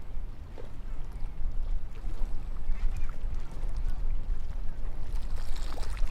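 Seaside beach ambience: a constant low rumble of lapping water and wind on the microphone, with faint scattered ticks and a brief rise in splashy hiss near the end.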